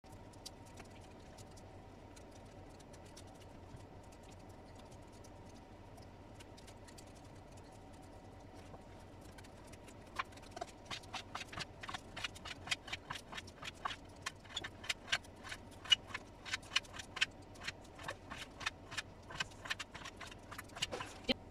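Kitchen knife chopping pork belly into lardons on a cutting board. The blade knocks on the board in quick, uneven strokes of a few a second, starting about halfway in after a quiet stretch of slicing.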